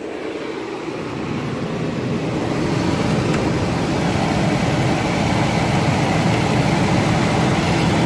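Toyota Fortuner's six-cylinder engine idling steadily. It grows louder over the first few seconds as the microphone comes close to the open engine bay, then holds steady.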